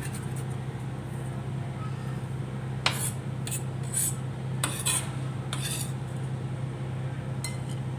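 A kitchen knife tapping and scraping against the tabletop as it gathers finely chopped onion and green chilli: about half a dozen irregular light knocks in the second half, over a steady low hum.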